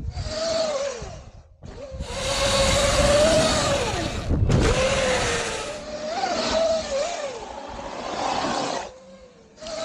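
Electric motor whine of a Surron L1e electric dirt bike, rising and falling in pitch as the throttle is worked, over a loud rush of wind and tyre noise on dirt. The sound breaks off abruptly several times.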